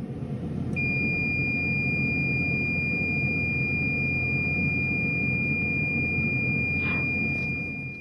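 Potterton Kingfisher MF boiler's combustion fan spins up and runs with a steady hum. From about a second in, a multimeter on continuity gives one unbroken high beep: the air pressure switch has made with the fan running. Fan and beep die away together at the end, as the fan stops and the switch drops out.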